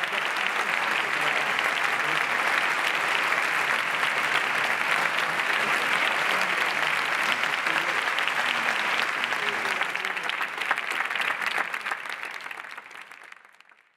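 Theatre audience applauding steadily, then fading out near the end.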